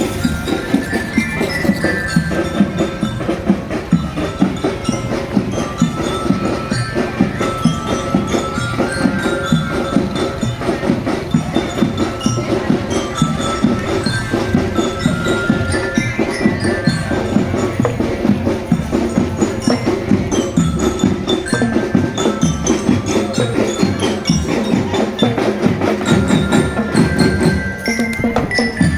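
Marching drum band playing: a bright glockenspiel (bell-lyra) melody over fast, steady snare and bass drum beats.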